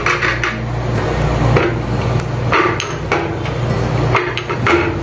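Pestle pounding black peppercorns and ginger in a mortar: repeated, uneven strikes as the spices are crushed.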